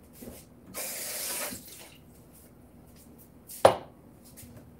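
A tap runs briefly, then a glass drinking glass is set down on the countertop with one sharp clink.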